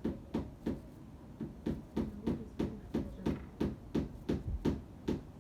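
A hammer tapping small nails into a thin furniture back panel, a steady run of knocks about three a second.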